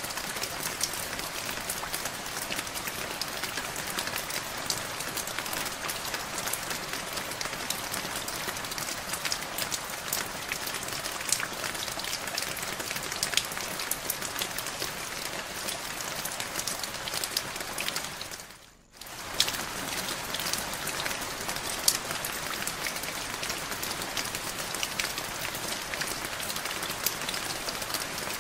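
Steady rain with a patter of individual drops. It briefly fades out and comes straight back about two-thirds of the way through.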